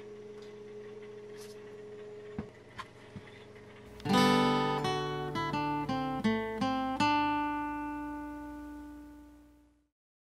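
Faint steady hum of the running gas combi boiler and its circulating pump, with a few small clicks. About four seconds in, a short acoustic guitar jingle comes in much louder: a strum, then a quick run of plucked notes and chords, the last chord ringing out and fading away.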